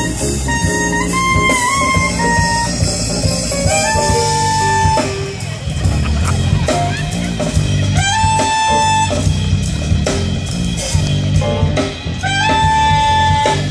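Live jazz: an amplified saxophone plays a solo of quick notes early on, then long held high notes of about a second each, three times, over the band's loud low backing.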